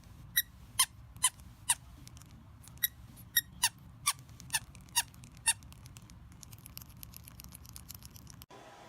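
A series of short, high squeaks, about two a second for the first five seconds, followed by a quicker run of fainter chirps that stops abruptly near the end.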